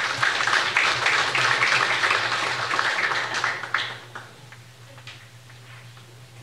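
Audience applauding, a dense patter of clapping that dies away about four seconds in, leaving a steady low electrical hum.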